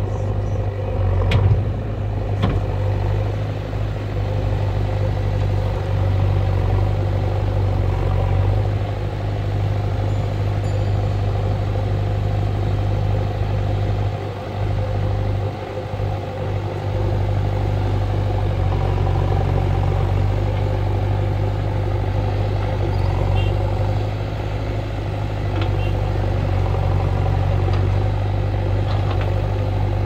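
JCB 3DX backhoe loader's diesel engine running steadily as the machine works, with a brief drop in engine note about halfway through. A couple of sharp clanks sound in the first few seconds.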